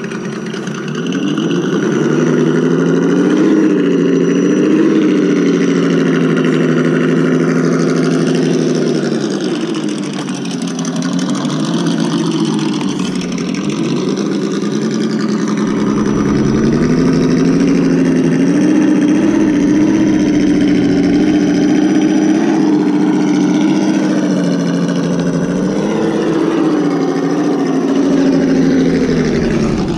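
ESS Dual engine sound module on an Axial Wraith RC rock crawler, playing a simulated engine through its speaker that revs up and falls back with the throttle as the truck crawls. The revs sag around ten seconds in and drop away near the end.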